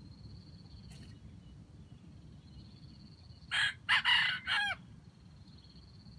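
A red junglefowl rooster crows once, a short crow of about four linked syllables with the last one dropping in pitch, about three and a half seconds in. A faint high insect trill runs steadily behind it.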